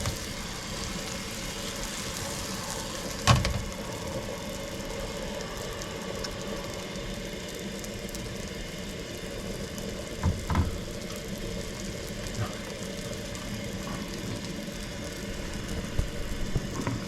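Bread dough frying in hot grease in a pan, a steady sizzle over a low hum, with a sharp knock about three seconds in and a couple of thumps about ten seconds in.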